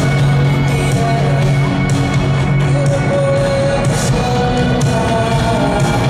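Live rock band playing loud through a concert PA, heard from the audience: steady bass notes, held sung notes and cymbal crashes.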